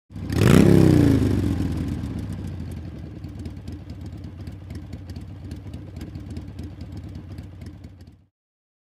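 Motorcycle engine revved once sharply, the pitch shooting up and falling back, then settling into a steady idle that fades a little and cuts off abruptly near the end.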